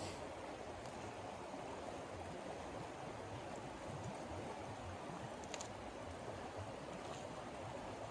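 Shallow, fast-flowing stream running over stones: a steady rush of water.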